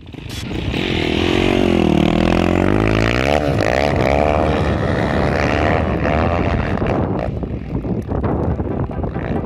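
Dirt bike engine revving, its pitch dipping and then climbing again in the first few seconds, then running hard at high revs and growing a little fainter near the end.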